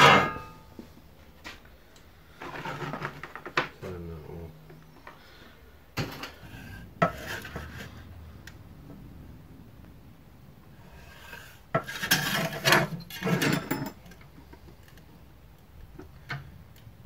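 A thin scrap sheet of steel, about 1 mm thick, clattering and scraping against the workbench as it is handled and marked out. The noise comes in three bursts of rattling with sharp clicks, with quieter stretches between them.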